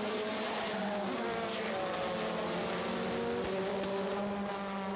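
Formula Two race cars' turbocharged 1.8-litre four-cylinder engines running at speed as a close pack goes through a corner, several engine notes overlapping with their pitches gliding down and up.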